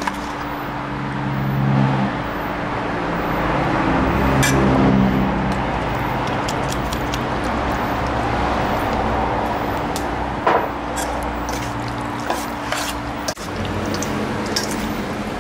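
A metal spoon stirring marinated chicken wings in a stainless-steel bowl: wet squelching, with scattered sharp clicks of spoon on bowl. A steady low motor hum runs underneath, swelling twice in the first few seconds.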